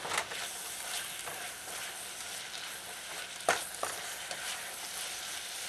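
Leeks, chicken strips and olives sizzling in a stainless steel pot while being stirred, with a steady frying hiss. The stirring utensil knocks against the pot about three and a half seconds in, and lightly again just after.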